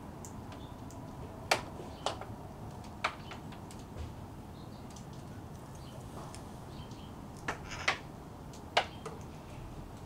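A parrot's beak cracking and snapping in the tree as it feeds: six sharp clicks, three in the first few seconds and three more near the end, over a steady low background hiss.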